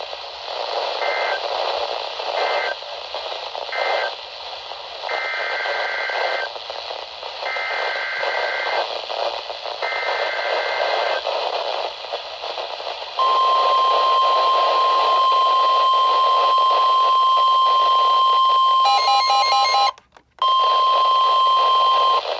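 Emergency Alert System tones on a weather radio broadcast over static hiss. Three short end-of-message data bursts sound first, then three longer warbling two-tone SAME header bursts for a new warning. A steady 1050 Hz warning alarm tone follows, held for about nine seconds and cutting out briefly near the end.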